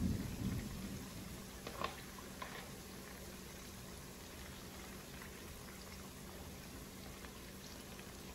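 Chicken wings deep-frying in hot oil in a cast-iron pot, a steady sizzling hiss. A low rumble at the very start and a couple of short clicks about two seconds in stand out above it.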